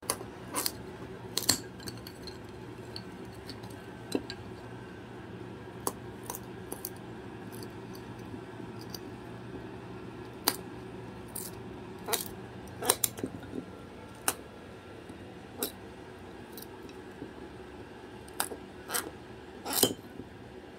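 A cockatoo playing with its toys: scattered sharp clicks and clinks at irregular moments, a second or several apart, with a cluster of louder ones near the end.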